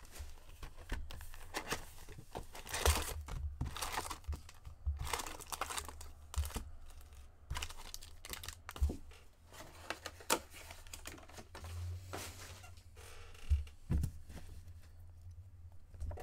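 Plastic wrapping on a box of Upper Deck hockey card packs being torn open and crinkled by hand, in irregular crackling bursts with a few sharp clicks.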